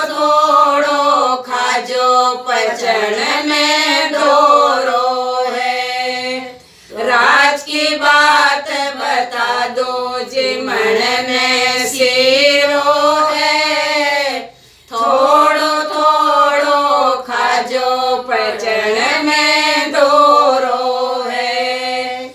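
A small group of women singing a banna-banni wedding folk song together in Hindi, unaccompanied, in long held phrases. The singing breaks off briefly twice, about a third and two thirds of the way through, before the next verse begins.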